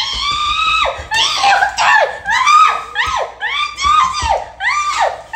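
A woman's high-pitched screaming and wailing, acting out a small child's tantrum: one long held scream, then a string of short falling wails about two a second.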